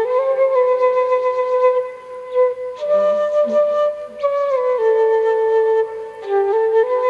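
Flute playing a slow melody of held notes that step gently up and down, with short pauses between phrases.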